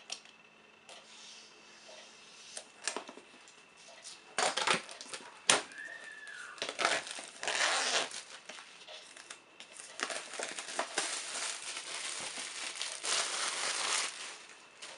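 Thin plastic shrink-wrap being slit and peeled off a cardboard box, crinkling and crackling in irregular bursts that grow denser and louder in the second half. A single sharp click comes about five and a half seconds in.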